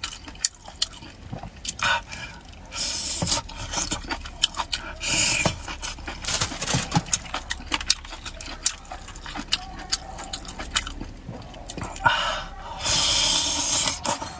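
Close-miked eating of a spicy skewer: chewing with many short, wet mouth clicks, broken by three longer hissing sounds, about three seconds in, around five seconds in, and near the end.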